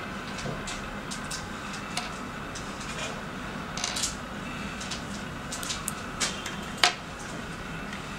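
Small scattered clicks and taps of metal tweezers handling a tiny earpiece on a tabletop, over a steady hiss; the sharpest click comes about a second before the end.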